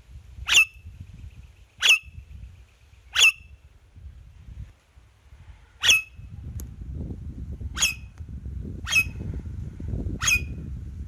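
Indian ringneck parakeet making sharp clicking sounds, seven short clicks at uneven intervals of one to two and a half seconds, each ending in a brief squeaky tone.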